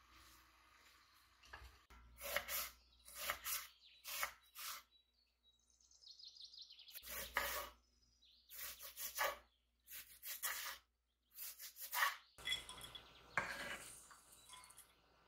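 Kitchen prep handling noises: a dozen or so short irregular clatters and rubs of dishes and utensils, with quiet gaps between them.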